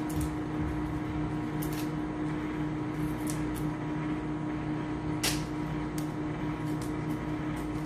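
A steady appliance-like hum with a strong low tone, with scattered small clicks and crackles as cooked shrimp shells are peeled off by hand, one sharper click about five seconds in.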